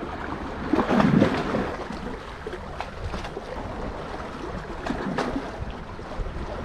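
Seawater splashing and sloshing close to the microphone as a person swims, loudest about a second in.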